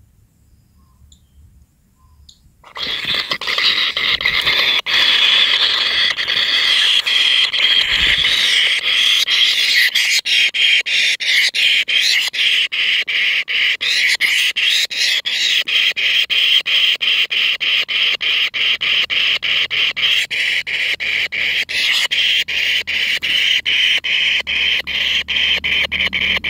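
Kingfisher nestlings begging, a loud continuous chorus of rapid rasping calls that starts suddenly about three seconds in.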